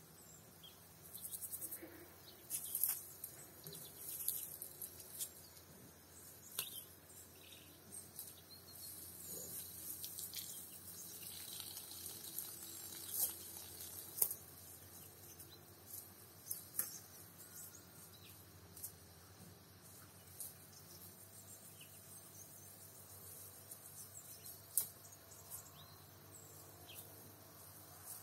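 Rural outdoor ambience: a river running under a steady high chirring of crickets, with scattered short clicks and rustles.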